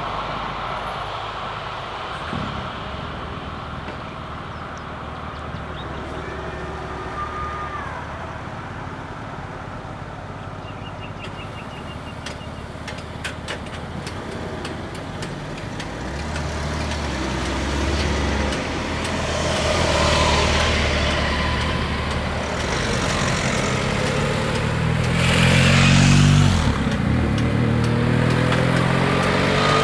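Road traffic passing: car and truck engines and tyres, growing louder about halfway through, with one vehicle passing close near the end, its engine note falling as it goes by.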